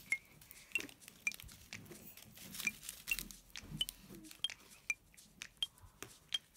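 Light, sharp ticks about twice a second, each with a small high ping, over faint rustling.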